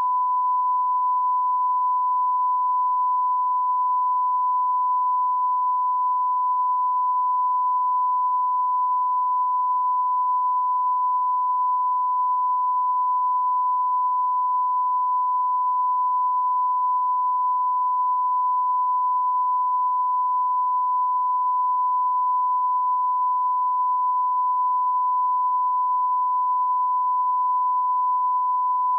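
Continuous 1 kHz line-up reference tone, the pure test tone played with colour bars at the head of a broadcast tape for setting audio levels. One steady, unwavering pitch.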